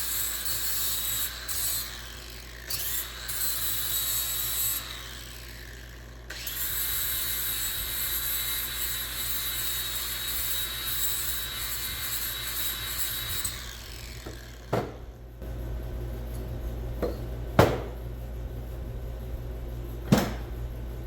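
Electric power tool running in three bursts, each with a high steady whine over a rasping noise, spinning up at the start and winding down at the end; the last and longest run lasts about seven seconds. Three sharp knocks follow near the end.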